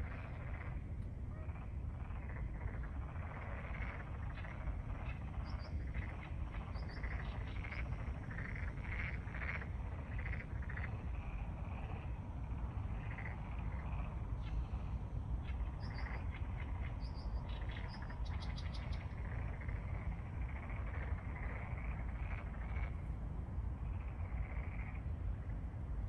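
A chorus of black-spotted pond frogs (Pelophylax nigromaculatus) calling from the pond: many short, pulsed croaks overlap, thickest through the middle. A steady low rumble runs underneath.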